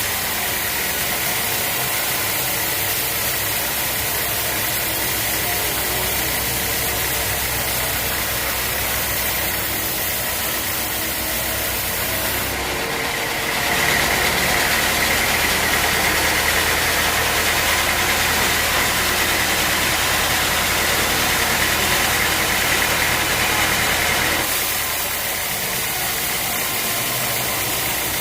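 Sawmill machinery running steadily, an engine drone with a high, even whine over it, a little louder for about ten seconds in the middle.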